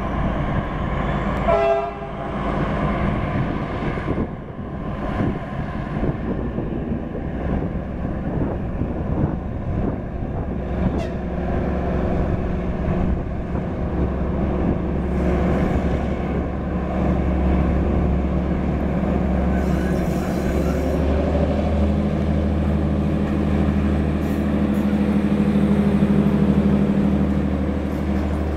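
MÁV M41 diesel-hydraulic locomotive pulling away with a freight train. It gives a short horn blast about two seconds in, then its diesel engine runs under load, growing louder as the locomotive draws near and passes.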